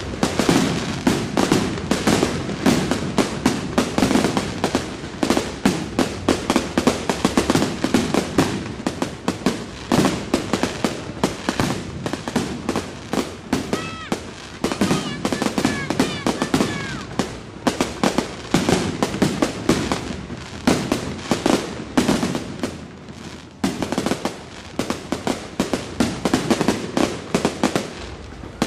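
Fireworks and firecrackers going off in a dense, continuous barrage of sharp bangs and crackles, easing for a moment about three-quarters of the way through. A few faint high whistles sound through it near the middle.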